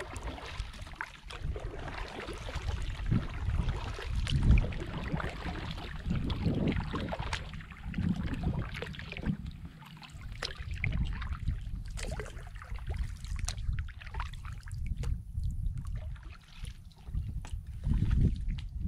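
Kayak paddles dipping and pulling through calm water, with water trickling and dripping off the blades. Wind rumbles on the microphone underneath.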